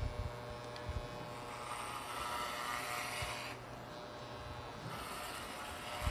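Corded electric hair clippers with a guard comb buzzing with a steady low hum. There are two louder hissing stretches as the blades run through hair, one from about a second and a half in and another near the end.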